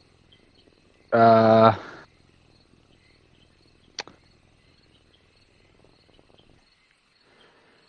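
A man's voice holding a short, steady 'uhh' or 'hmm' for under a second, then a single sharp click a few seconds later; otherwise only faint background hiss.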